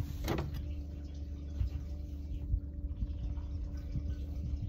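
Boat motor running steadily at trolling speed, a low rumble with a faint hum, and water lapping against the hull. A brief sharp noise comes just after the start.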